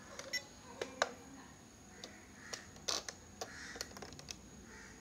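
Irregular plastic clicks and taps from handling a RadioLink AT9 radio transmitter, a dozen or so, as its buttons and jog wheel are pressed and its sticks are moved. The loudest clicks come about a second in and just before three seconds.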